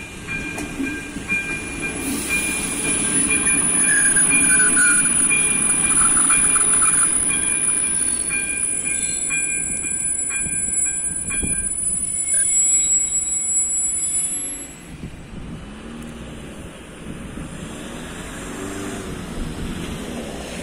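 A ČD Class 814 Regionova diesel railcar runs over the level crossing, its engine and wheels loudest from about three to fourteen seconds in, with a high wheel squeal over them. The crossing's warning bell rings steadily and stops about eleven seconds in. The train then dies away.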